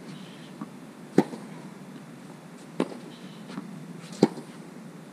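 Tennis ball struck back and forth by rackets in a baseline rally: three sharp hits about a second and a half apart, with fainter knocks of the ball bouncing on the court between them.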